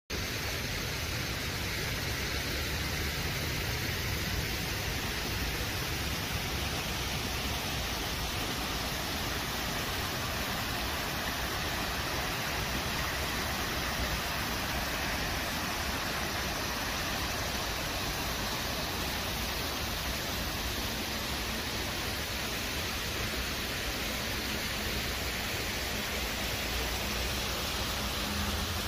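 Steady rushing of falling water from garden cascades and fountain pools, an even hiss with no breaks.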